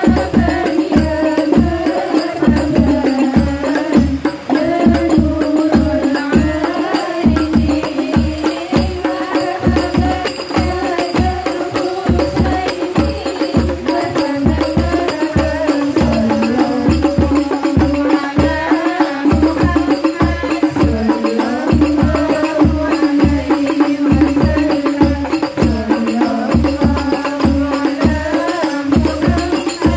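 Rebana frame drums struck by hand in a steady rhythm, about two to three beats a second, with voices singing along over them.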